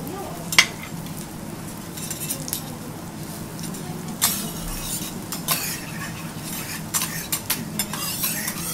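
Oil sizzling on a steel teppanyaki griddle as vegetable slices fry, with sharp clicks and taps of metal spatulas on the plate. The loudest tap comes about half a second in, and the taps come more often from about four seconds in.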